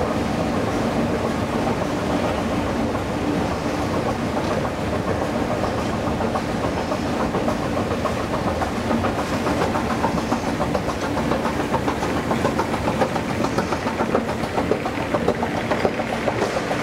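Escalator running under a rider: a steady hum from the drive, with a fast, even clatter from the moving steps. The clatter grows louder toward the top landing.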